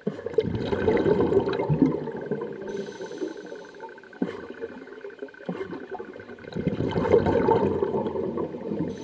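Scuba regulator breathing heard underwater: two long gurgling bursts of exhaled bubbles, one at the start and one from about six and a half seconds in, with quieter stretches and a couple of small clicks between.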